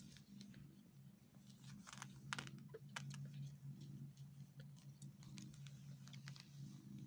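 A mother cat purring faintly and steadily while she nurses her newborn kittens, with a scatter of small clicks and rustles, most of them about two to three seconds in.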